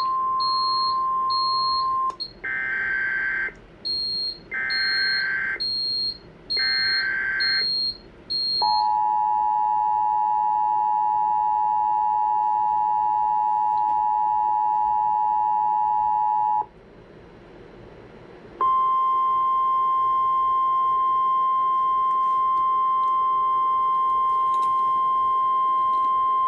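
Emergency Alert System activation from a Sage ENDEC announcing a severe thunderstorm warning. Over a rapid high electronic beeping, a steady tone gives way to three short bursts of SAME header data tones. Then the two-tone EAS attention signal holds for about eight seconds, and after a brief pause a single steady weather-radio alert tone sounds for about nine seconds.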